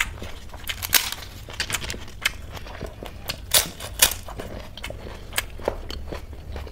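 Close-up eating sounds: a fried papad being bitten and chewed, giving several sharp, crisp crunches spread over a few seconds, the loudest about three and a half and four seconds in.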